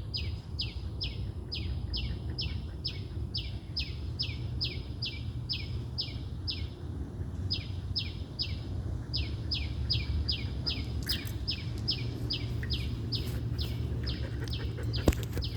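A bird chirping over and over in a fast, even series, about three chirps a second, each a short downward sweep, with a brief pause about seven seconds in. A steady low rumble runs underneath.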